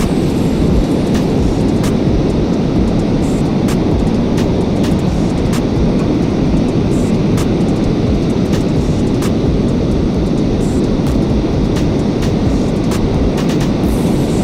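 Steady rumbling wind noise buffeting the microphone at the shore, with light ticks scattered through it.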